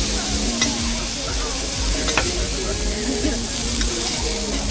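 Food frying on a burger stall's hot griddle: a steady sizzle, with a few sharp clicks.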